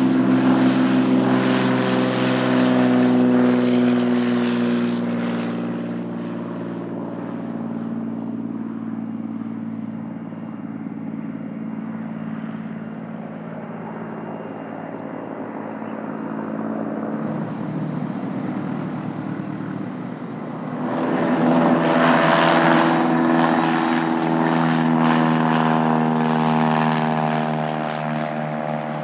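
Cirrus SR22T's turbocharged six-cylinder engine and propeller at takeoff power, loud at first and falling in pitch, then fading as the aircraft climbs away. About two thirds of the way through, a Cessna 172S Skyhawk's four-cylinder engine and propeller take over, growing suddenly louder and falling in pitch as it passes.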